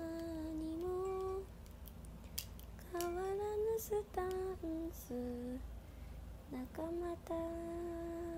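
A young woman humming a slow tune to herself in long held notes, a few of them stepping up or down in pitch, with short gaps between phrases. A few light clicks sound in between.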